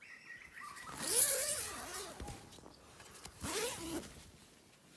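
Zipper on a mesh insect-net door being pulled open in two long strokes, the first about a second in and the second near the end, each a rasp that wavers in pitch with the speed of the pull.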